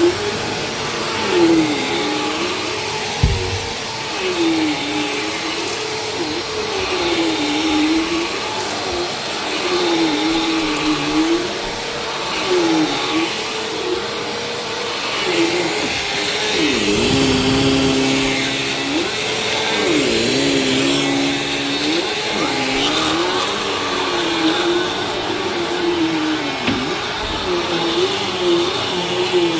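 Vacuum cleaner running steadily, its motor pitch dipping and rising again in a regular wave every two to three seconds, with a short knock about three seconds in.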